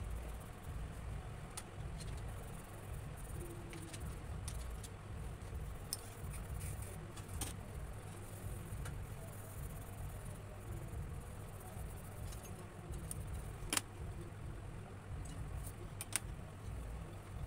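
Coloured pencils working on paper, with a few sharp light clicks of pencils tapped or set down on the table, the loudest a little before the end, over a steady low hum.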